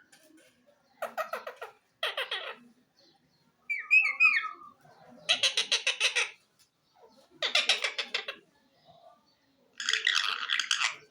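A pet green parrot calling: about six harsh squawks, each under a second long and spaced a second or so apart, with a shorter whistled, warbling call among them.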